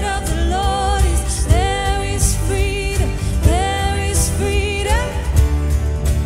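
Contemporary Christian worship song: singing over a full band with drums.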